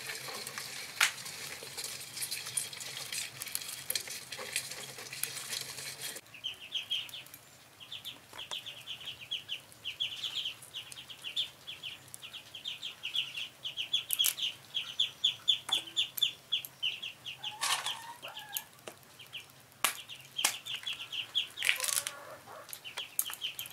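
Small river crabs being broken and shelled by hand over a steel bowl with water: wet crackling and sharp clicks. After about six seconds a fast, steady series of high chirps, several a second, takes over in the background, broken by a few sharper cracks.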